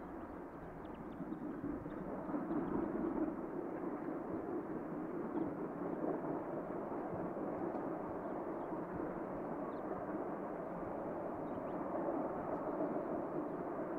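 Three steam locomotives (Victorian Railways D3 639, A2 986 and R761) working a train, heard from afar as a steady rush of exhaust that grows louder about two seconds in.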